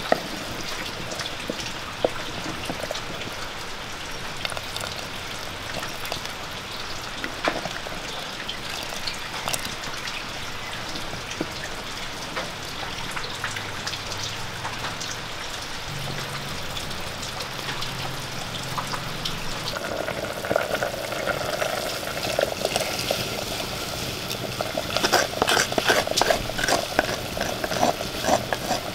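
Shallots sizzling in ghee in a clay pot over a wood fire, with a wooden spoon stirring now and then. The sizzling turns louder with dense crackling in the last several seconds.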